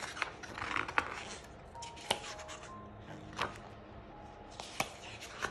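Pages of a K-pop album photobook being turned and pressed flat by hand: several short rustles and snaps, about a second or so apart, over soft background music.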